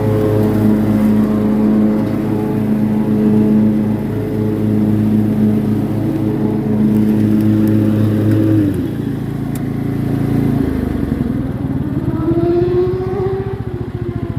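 Cub Cadet riding lawn mower's engine running steadily. About nine seconds in its note drops and changes, and near the end a tone rises and dips again.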